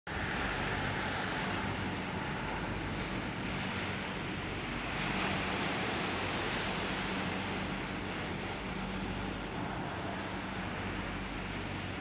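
Steady wash of sea surf and wind on the microphone, with a low steady hum underneath.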